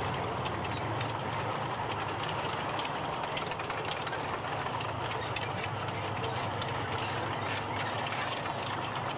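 T-34-85 tank driving past, its V-2 V12 diesel engine running steadily under a continuous clatter of steel track links.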